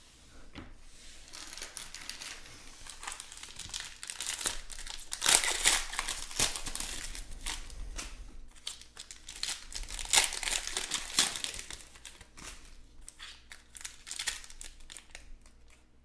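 Wrappers of 2020 Panini Chronicles Baseball card packs crinkling in irregular bursts as the packs are handled and torn open, loudest around the middle.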